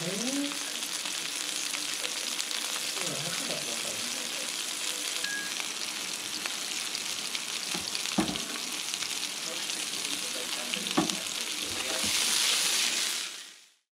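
Sliced poplar mushrooms sizzling steadily in a frying pan, with two sharp knocks about eight and eleven seconds in. The sizzle swells louder near the end as they are stirred.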